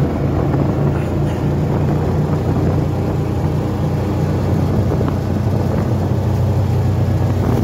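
Engine of an open side-by-side utility vehicle running steadily at road speed, a constant low hum with wind and tyre noise over it.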